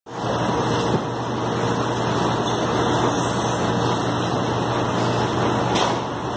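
Steady machinery noise of a packing plant: an even rush with a constant low hum underneath.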